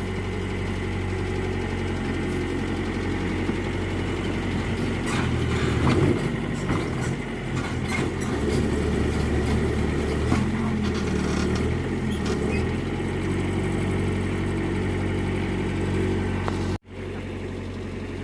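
Mitsubishi MS030 backhoe's diesel engine running, its note shifting up and down under load for several seconds mid-way, with a few sharp knocks. The sound drops out for an instant near the end.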